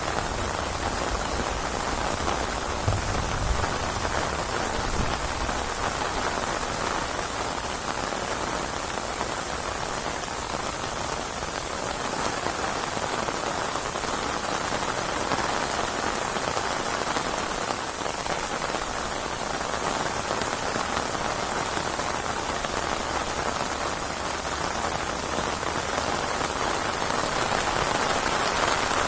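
Steady heavy rain falling and pattering on surfaces, with a faint low rumble in the first few seconds.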